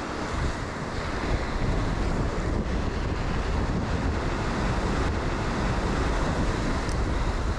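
Small surf breaking and washing up the beach, with wind buffeting the microphone as a steady low rumble.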